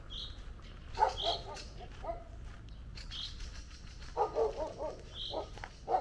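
A dog barking in several short bouts, the first bark about a second in being the loudest. A bird's short high call repeats every second or two.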